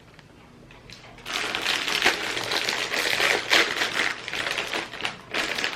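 Crinkly plastic snack bag of corn puffs being handled and rustled open, a dense crackling rustle with many small clicks that starts about a second in.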